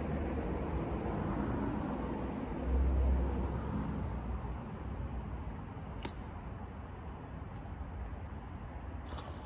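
Low steady rumble of distant road traffic, with a louder low swell of wind on the microphone about three seconds in. A faint click about six seconds in and another near the end.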